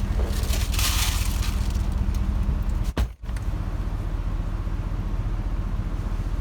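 Steady low mechanical hum, like a vehicle engine running, with a hiss lasting about a second near the start. The sound drops out briefly about three seconds in.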